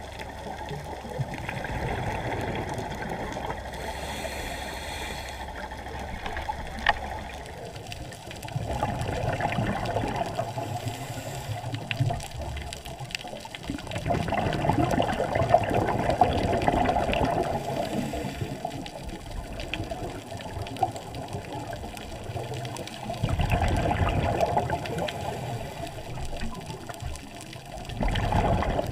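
Scuba diver breathing through a regulator underwater, muffled through the camera's waterproof housing: a rush of exhaled bubbles swelling and fading about five times, several seconds apart, with scattered faint clicks.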